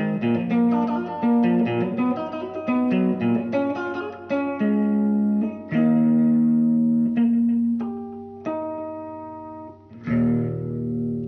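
Background music: a guitar tune of quick plucked notes, giving way to longer ringing chords in the second half, with a fresh chord struck near the end.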